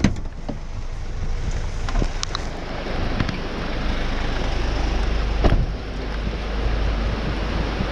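Steady rain and wind noise on the microphone over the low rumble of an idling rescue vehicle, with a few sharp knocks, the loudest about five and a half seconds in.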